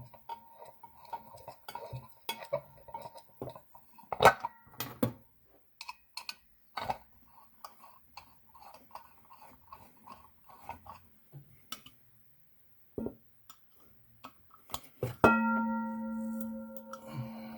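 Small metal clicks and clinks of a bolt being fitted and screwed through a Teflon-coated pan. About 15 seconds in, the pan is knocked and rings with a steady, slowly fading tone.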